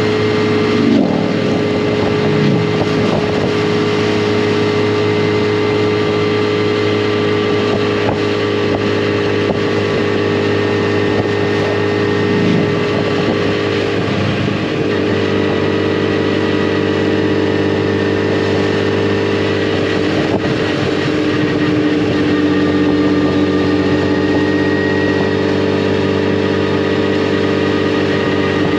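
Yamaha FJR1300 motorcycle's inline-four engine running steadily at cruise, heard from on the bike, its note shifting slightly in pitch about halfway through.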